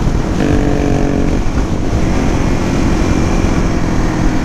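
Suzuki DR-Z400 supermoto's single-cylinder four-stroke engine running under way, mixed with heavy wind rumble on the helmet-camera microphone. A clearer engine tone stands out for about a second near the start, then settles to a steady drone.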